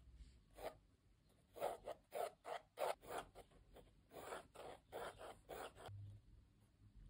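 Mechanical pencil with 2B lead scratching across sketchbook paper in about a dozen short, quick sketching strokes, with a brief pause midway.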